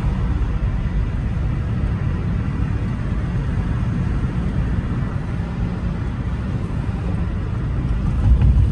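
Steady low rumble of a moving car heard from inside the cabin, road and engine noise, growing a little louder near the end.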